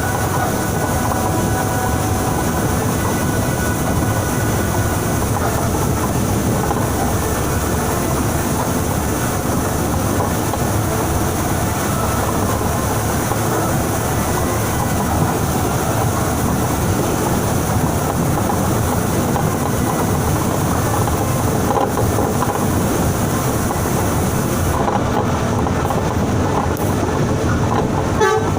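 Transjakarta city bus running on a wet busway in heavy rain: a steady mix of engine, tyre and rain noise, with a short knock near the end.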